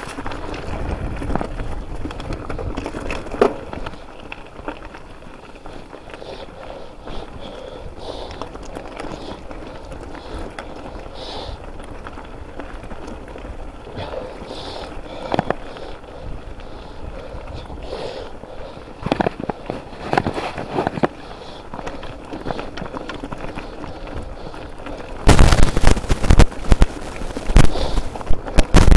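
Mountain bike riding over a rough, stony track: a rumbling rush with scattered clicks and knocks from the bike. Near the end a much louder crackling rush cuts in and stays.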